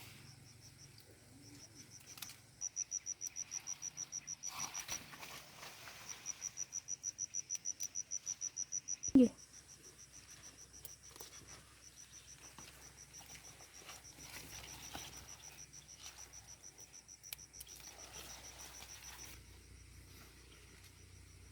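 An insect, cricket-like, trilling in a rapid high-pitched pulse of several chirps a second; it is strongest in the first half, pauses briefly, then goes on fainter and stops near the end. About nine seconds in there is one brief sharp thump, the loudest sound.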